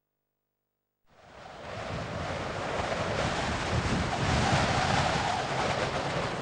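Silence for about a second, then a steady rushing noise like wind or surf fades in over about a second and holds.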